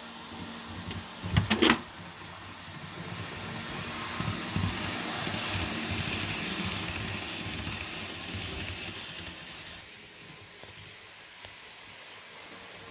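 Electric model passenger train rolling on its track, a steady rolling whir that swells as the coaches pass close by and then fades away. A quick burst of sharp clicks about a second and a half in.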